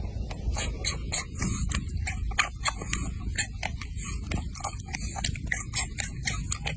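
A cat licking and chewing at its own paw close to the microphone: quick, irregular wet clicks, several a second, over a steady low rumble.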